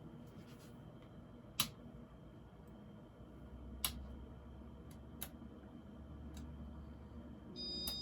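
A 1991 Casablanca Venus ceiling fan running with a faint low hum that grows a little stronger about halfway through. There are a few sharp clicks, then a short electronic beep from the fan's control near the end as it is set to a new speed.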